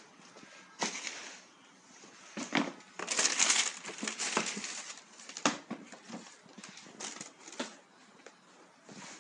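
Tissue paper rustling and crinkling as sneakers are handled and lifted in a cardboard shoebox, with a few soft knocks of the shoes against the box; the loudest crinkling comes about three seconds in.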